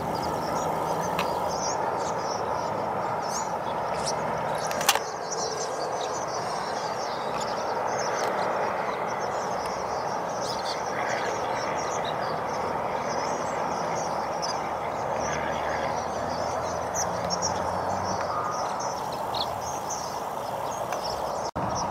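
A large flock of swallows twittering, a dense chatter of many short high calls overlapping without a break, over a steady background rumble. A single sharp click sounds about five seconds in.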